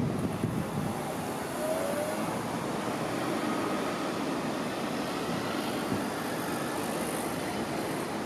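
Steady city road-traffic noise from a busy multi-lane boulevard, with cars and buses passing.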